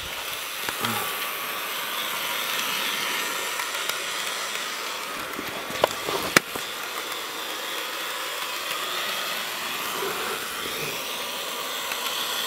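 Bachmann Toby model locomotive's small electric motor whirring steadily as it runs at slow speed along the track, with two sharp clicks about six seconds in.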